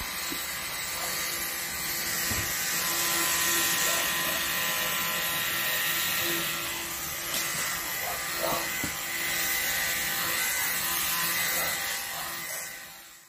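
Handheld electric sprayer running steadily, its small motor whining under the hiss of fine mist as it sprays seedlings; the sound fades out near the end.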